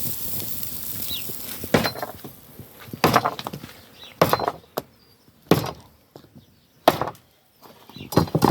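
Chopping blows on wood, about seven sharp strikes at an irregular pace, roughly one a second.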